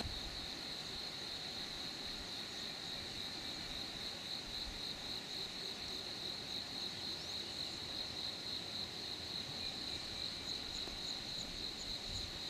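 Insects chirring steadily in one high, slightly pulsing drone. Near the end, a fainter, higher chirp joins in, repeating about twice a second.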